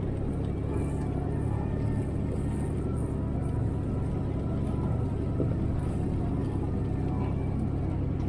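CFMoto Uforce 1000XL side-by-side's engine and drivetrain running steadily under way, climbing a gravel trail at low speed, a constant low rumble.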